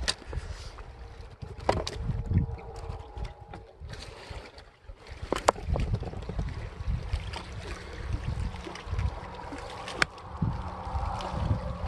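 Wind buffeting the microphone in uneven gusts, with a few sharp clicks.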